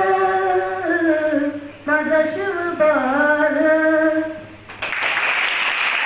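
A boy singing long held, wavering notes in two phrases, the last line of a Marathi song, with no instruments heard; about three-quarters of the way in the singing stops and an audience breaks into applause.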